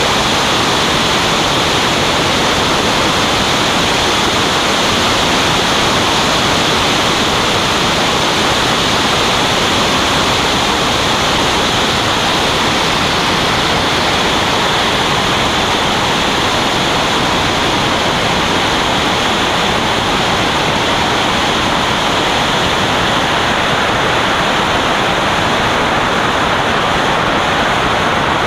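Steady rushing noise of airflow and an L-39 Albatros jet's engine, picked up by a camera mounted outside on the wing during a formation landing and rollout. The hiss eases a little near the end.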